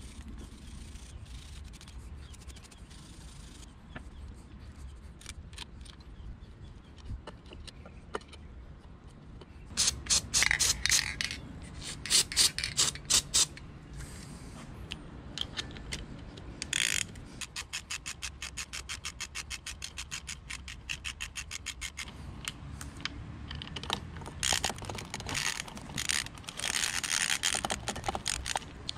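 Hand ratchet wrench clicking as a nut is run down onto a cable terminal on an outboard starter. There are short bursts of quick clicks, a longer even run of clicks in the middle, and more bursts near the end, after a quieter opening stretch.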